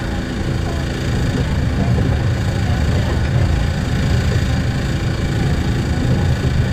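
Loud, steady underwater noise played into a dolphin pool: a dense low rumble with several steady humming tones running through it.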